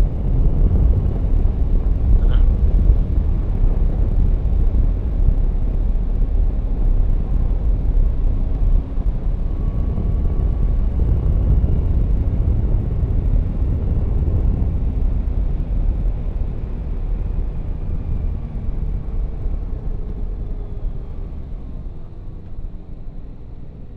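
A Yamaha Tracer 9 GT motorcycle riding at road speed: a steady low rumble of wind and road noise, with the engine faint beneath it. It grows gradually quieter over the last several seconds.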